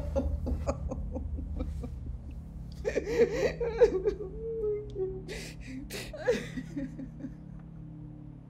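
A woman sobbing. A wavering, drawn-out cry comes a few seconds in, then sharp gasping breaths, and it grows quieter toward the end.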